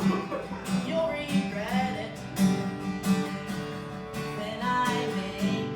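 Acoustic guitar strummed in the closing bars of a song.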